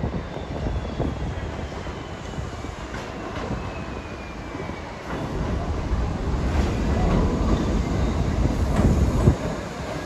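New York City subway train running through the station: a steady low rumble with wheels clicking over the rail joints, a faint falling whine in the first half, and growing louder about halfway through, with a sharp knock near the end.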